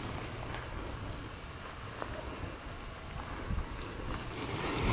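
Insects trilling in a thin, high line of short repeated pulses, over slow footsteps in dry grass and a low rumble of wind on the microphone.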